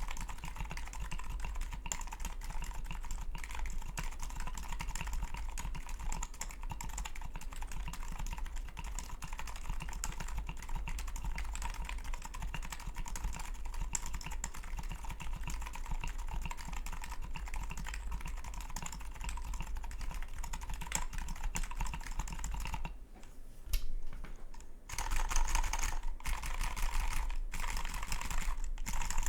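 Clever Blue Ridge custom mechanical keyboard (DynaCap switches, integrated POM plate, DCS keycaps) being typed on steadily in a fast run of key clacks. The typing stops briefly about three-quarters of the way in, then resumes louder near the end.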